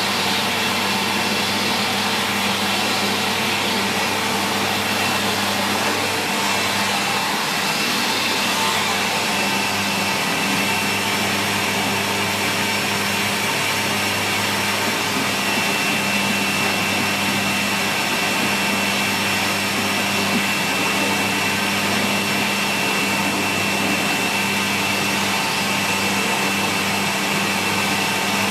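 Sanyo SCA-7AX upright bagged vacuum cleaner running steadily, its motor giving a constant high whine over a dense rushing airflow noise.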